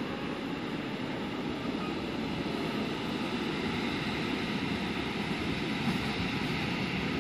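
Steady rolling rumble of trains at the platform: an EN71 electric multiple unit drawing in beside a train of open freight wagons.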